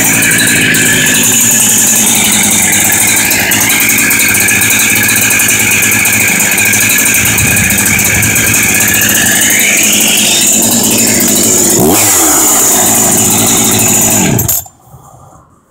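Husqvarna 372XP two-stroke chainsaw, a freshly built engine with a 52 mm big bore kit on a rich fuel mix, running at high revs. Its pitch dips and climbs again about twelve seconds in, and the saw is shut off near the end, going quiet abruptly.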